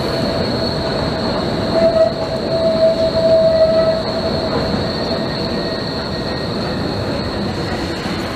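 Multi-section low-floor tram rolling past through a curve on street track, its wheels squealing with steady high tones over the rumble of the running gear. The squeal is loudest about two to four seconds in.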